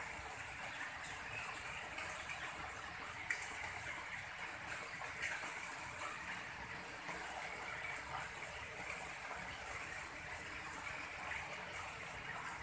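Steady rushing background noise, with a few faint ticks about three and five seconds in.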